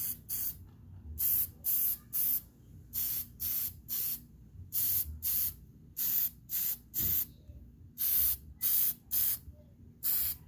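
ColorPlace aerosol spray paint can spraying a coat of paint in a quick series of short hissing bursts, mostly in twos and threes.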